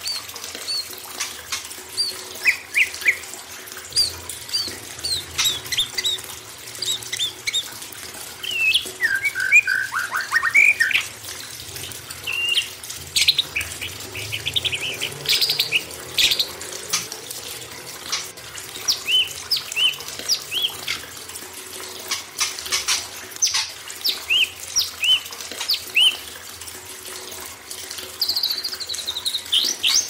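Several songbirds giving short whistled notes and chirps, with a few fast trills, over a steady sound of running water.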